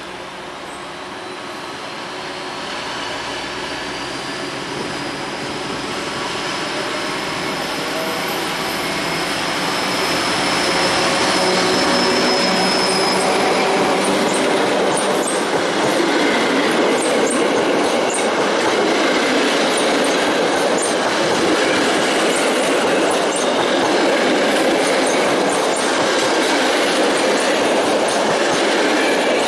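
Class 754 'Nurek' diesel-electric locomotive pulling a passenger train away and passing close. Its sound grows louder with a slowly rising whine over the first dozen seconds, then gives way to a steady rolling roar of wheels on rail as the coaches run past.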